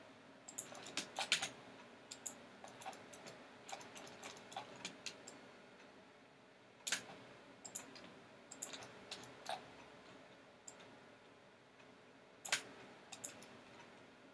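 Irregular, faint clicks of a computer mouse and keyboard, some single and some in quick clusters, the loudest bunches about a second in, around seven seconds in and near the end.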